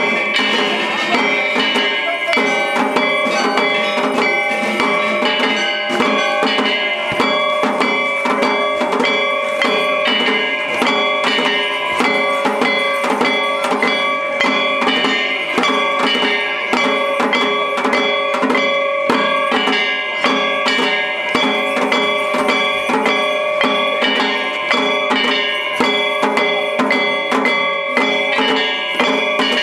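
Shishimai festival music: drums and a clanging metal percussion instrument keep a fast, steady beat, with sustained ringing tones over it, accompanying the lion dance.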